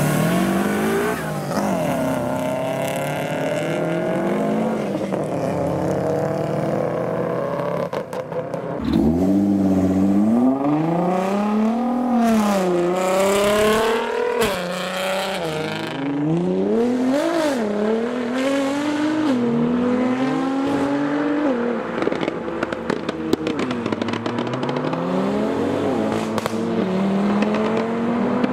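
Modified tuner cars revving and accelerating away one after another, their engine notes climbing and dropping with each gear change; the loudest pull starts about nine seconds in. Near the end comes a run of quick, sharp exhaust pops and crackles.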